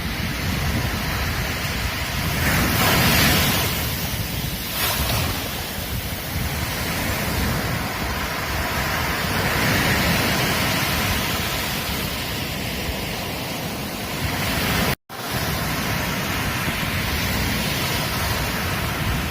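Ocean surf breaking on a beach: a steady wash of waves that swells and recedes, loudest a few seconds in and again around the middle. The sound cuts out for an instant about three quarters of the way through.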